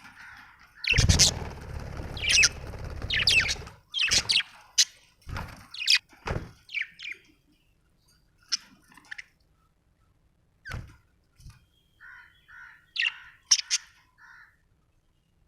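Budgerigar chirping: quick, sharp chirps and squawks in a busy run over the first several seconds, with a loud rustling noise for about three seconds near the start, then sparser calls and a few soft warbling notes near the end.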